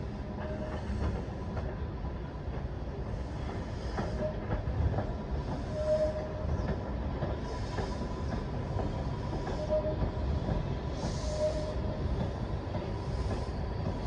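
WMATA Metrorail train running past at a distance: a steady low rumble with short squeaks now and then. A faint steady whine joins about halfway through.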